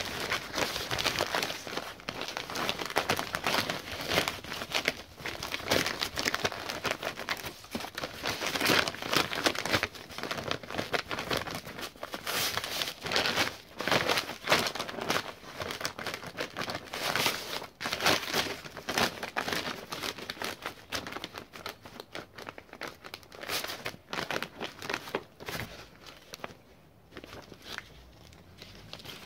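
Sheet of Isover Vario vapour-control membrane being handled, folded and creased by hands, with irregular crinkling and rustling that dies down over the last few seconds.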